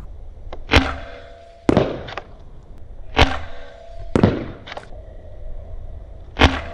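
A ZWQ S200 Fire Rat spring-powered foam-dart pistol firing three times, each shot a sharp clack with a brief springy ring. Each shot is followed about a second later by one or two weaker clacks.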